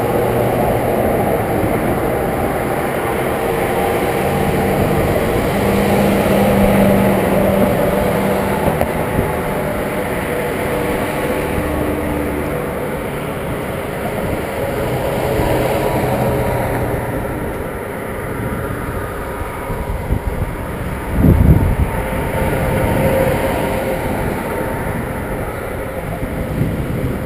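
Wind and road noise on a camera mounted on a moving bicycle, with motor vehicles passing in the next lanes and their engines rising and fading in the first half. About 21 seconds in, a brief, loud low thump stands out.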